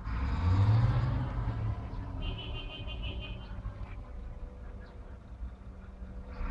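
Heavy vehicle engine running with a steady low hum, and a louder rumble that swells about half a second in and dies away by about two seconds. A brief high-pitched chirp comes in about two seconds in.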